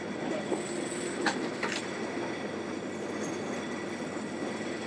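Fishing boat's engine running steadily, with a couple of light clicks about a second and a half in.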